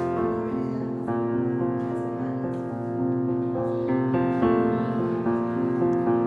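Background soundtrack music: a slow piano piece with held notes changing about once a second.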